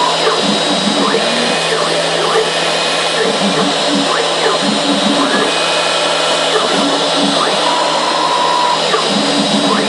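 CNC router's spindle running steadily as its bit mills a pocket into a foam block, with the axis stepper motors adding short rising and falling whines as the head changes direction, and a held higher tone for about a second near the end.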